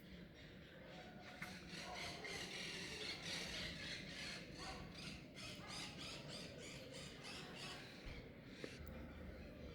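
A bird calling in a long run of quick, evenly repeated high chirps, faint.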